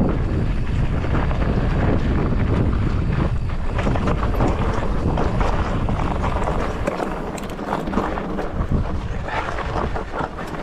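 Mountain bike descending a rocky desert trail: wind rushing over the helmet camera's microphone, with the tyres and bike rattling and knocking over rocks. The rush of wind drops about two-thirds of the way through as the bike slows.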